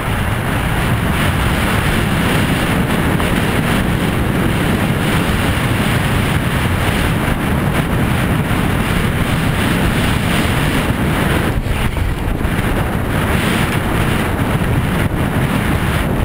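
Steady, loud wind noise buffeting the microphone of a camera on a horse galloping across a field, the rush of air from the horse's speed.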